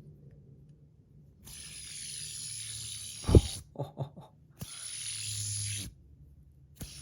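Fidget spinner fitted with PEI buttons spun by hand: a steady bearing whir with a thin high whine, twice for a second or two each, with a sharp knock about three seconds in as it is stopped.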